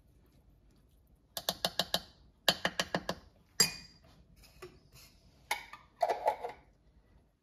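Two quick runs of small hard clicks, about a second and a half in and again a second later, then a single sharp click and scattered taps and a short clatter: the glass jar of prepared minced garlic and its spoon being handled at the counter.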